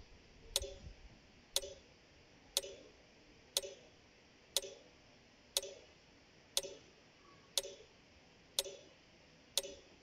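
A clock ticking steadily, one sharp tick each second, ten ticks in all.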